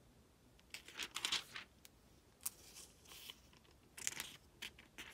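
Thin Bible-paper pages being turned and handled, crinkling in several short rustles.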